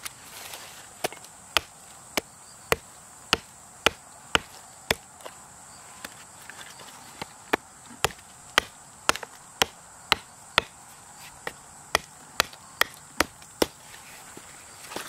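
Hatchet chopping a wooden spoon blank held upright on a log: sharp strikes about two a second. A run of about eight strikes is followed by a pause of a couple of seconds, then about a dozen more.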